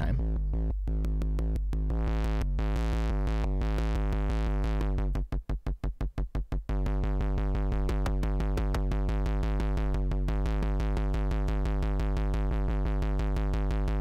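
Beehive eurorack oscillator's analog bass drum model fired by a fast train of triggers, its long decay blending the hits into a steady low pitched drone. A little past five seconds in, the decay is turned short and the hits sound as separate short kicks for about a second and a half, then the decay is lengthened and they run together again.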